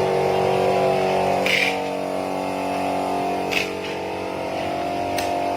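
MF 1600 warm laminating machine running with a steady hum of several held tones, with three short sharp sounds at about one and a half, three and a half and five seconds in.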